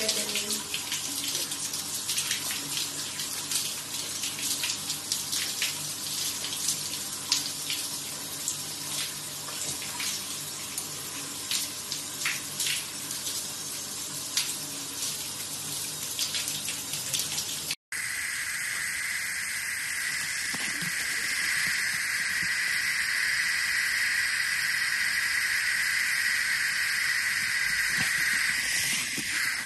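Tap water running with small splashes. After a sudden cut about two-thirds of the way through, a steady hiss of spraying water.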